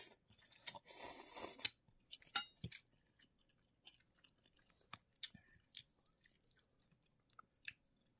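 A person slurping instant noodle soup noodles into the mouth about a second in, then chewing close to the microphone with small, irregular wet mouth clicks.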